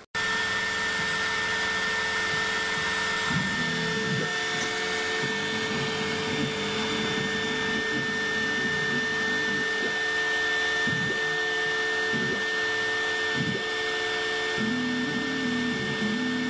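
CNC router milling: the spindle motor gives a steady high whine, and from a few seconds in the axis drives add a lower hum that shifts up and down in pitch as the bit traces the pattern. The bit is taking a very thin cut through powder-coated paint on thin sheet-steel doors.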